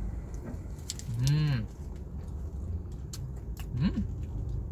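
A man humming "mmm" with his mouth closed while chewing a bite of burger: a loud hum about a second in that rises and then falls in pitch, and a shorter one sweeping up and down near the end. Small clicks of chewing and mouth noise come in between.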